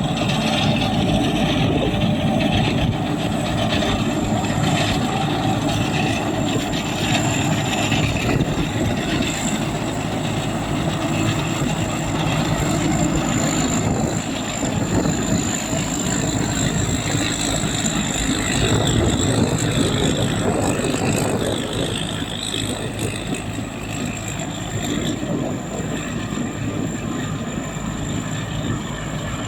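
Rice combine harvester running steadily, its engine and threshing machinery making a loud, continuous mechanical din with a steady high whine over it.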